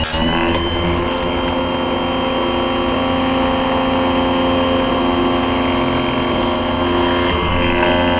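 Chicago Electric bench chainsaw chain sharpener's motor and grinding wheel running at a steady speed with a constant whine. The wheel grinds a chain tooth briefly right at the start.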